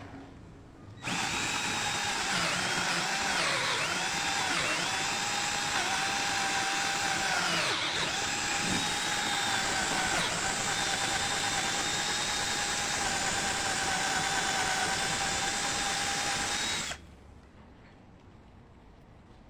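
Ken 12V cordless drill driver running for about sixteen seconds under load, its motor whine dipping in pitch a few times as the bit bites and then holding steady, before it stops abruptly.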